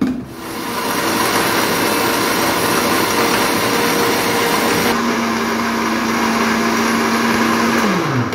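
Kitchen mixer grinder running, blending a milkshake mix of biscuits, ice cubes and ice cream. Its sound changes about five seconds in, and near the end the motor winds down, falling in pitch.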